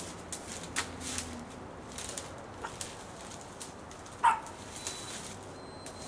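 One short, loud animal call, like a dog's bark, about four seconds in, over faint outdoor background with a few light clicks.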